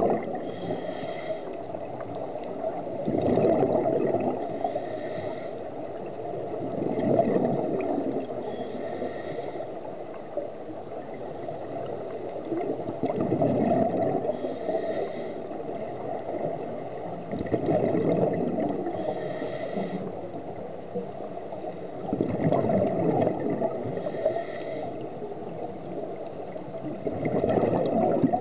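Scuba diver breathing through a regulator underwater: a hissing inhalation followed by a rush of exhaled bubbles, about one breath every 4 to 5 seconds.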